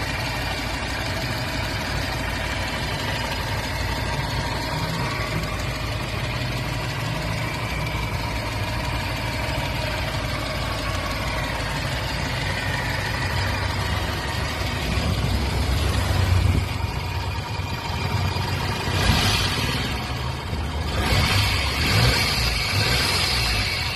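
Chevrolet Sprint's 1.0-litre three-cylinder engine idling cold, steady at first, then revved in a few short blips of the throttle over the last several seconds.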